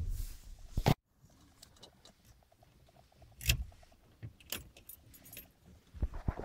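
Car keys jangling and a few separate sharp clicks from handling the ignition and dashboard controls inside a GAZ-24 Volga, before a cold start; the engine is not running.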